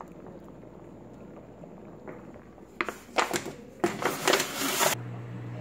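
Disposable aluminium foil pan crinkling and scraping against a wire oven rack as it is handled. A few sharp crackles come about three seconds in, then about a second of loud, dense crinkling. A steady low hum starts near the end.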